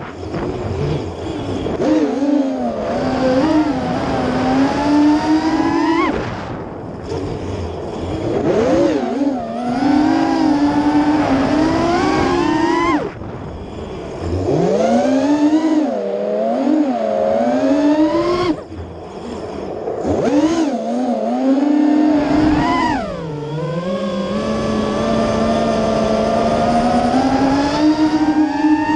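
Brushless motors and propellers of a Chameleon FPV quadcopter, heard through the GoPro Session mounted on it: a buzzing whine that glides up and down with the throttle. It drops away briefly several times as the throttle is cut, then surges back.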